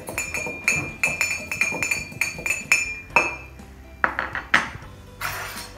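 A metal spoon clinks quickly against the inside of a ceramic mug as brownie batter is whisked, about four ringing clinks a second. After about three seconds the stirring stops and there are a few knocks and a short rustle.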